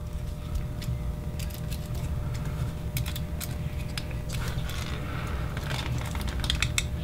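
Small screwdriver tightening the small metal bolts of an aluminium servo block, with scattered light metallic clicks and ticks that come more often near the end. Under it runs a steady low hum.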